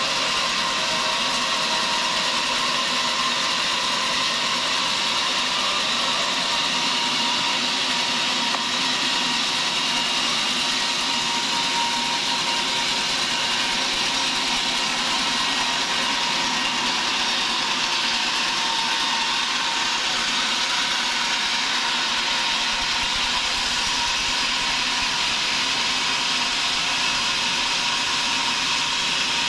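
Band sawmill blade ripping lengthwise through a large log, a steady, even cutting noise with the machine running underneath.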